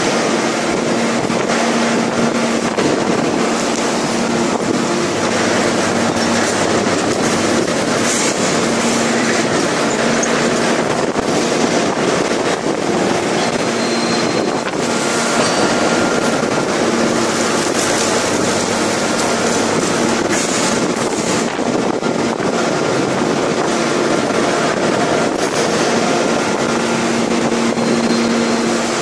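5000-ton hydraulic open die forging press and its hydraulic system running: a loud, steady rush of machinery noise with a constant low hum under it and no separate blows.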